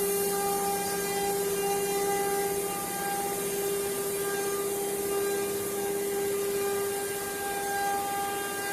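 CNC carving machine's spindle running steadily as it carves, a constant whine over a hiss of cutting.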